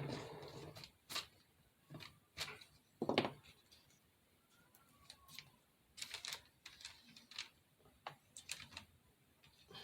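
Small craft pieces being handled on a tabletop: scattered light clicks and taps, with one louder knock about three seconds in.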